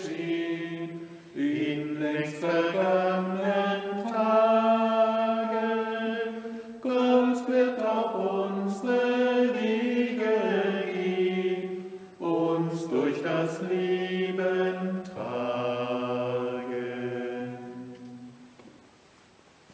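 Voices singing the closing refrain of a German church hymn in slow, held phrases, a lower part joining under the last long note, which fades out just before the end.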